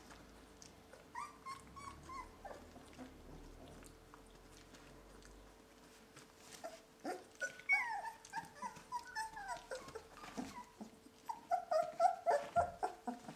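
Young Border Collie puppies, about three weeks old, whimpering and squeaking in short high calls: a few about a second in, then a busy run of calls from about seven seconds on that grows most frequent near the end.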